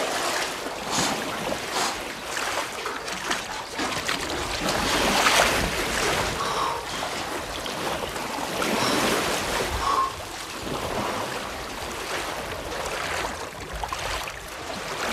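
A person swimming, water splashing and sloshing with each stroke in an uneven rhythm.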